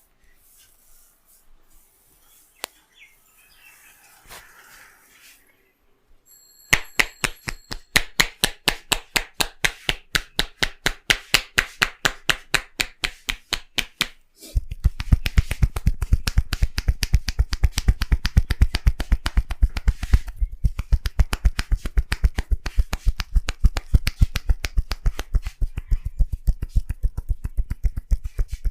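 A barber's hands doing a tapping massage, slapping rhythmically on skin: crisp slaps at about four a second starting about seven seconds in, then from about halfway a faster run of deeper pats.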